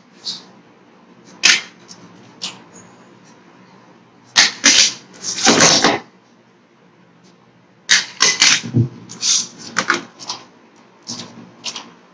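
Sharp clicks and knocks of small objects handled on a wooden tabletop. The loudest is a cluster of knocks about four and a half to six seconds in, followed by a run of quick clicks from about eight to eleven seconds.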